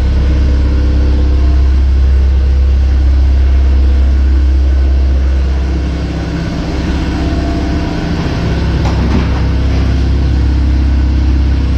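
A motor vehicle engine running steadily with a loud low hum, its tone shifting about six seconds in.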